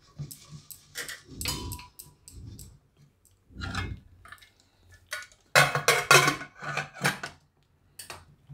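Metal pot sounds: quieter scraping and rattling first, then, from a little past halfway, a run of loud clanks and clicks as the pressure cooker's lid is set on and closed.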